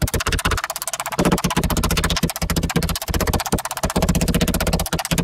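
Background music with a fast, even percussion beat and a bass line.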